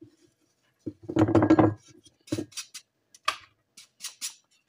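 Crushed cough tablets being tipped into a mug: a short scraping rattle about a second in, then a string of sharp knocks and clinks of crockery as the powder is tapped out into the mug.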